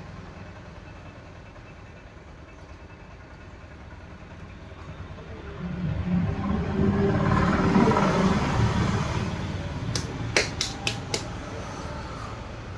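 Potter's wheel turning with a steady low hum as a large clay pot is shaped on it. Partway through, a louder low sound swells for a few seconds and fades, and a few sharp clicks come near the end.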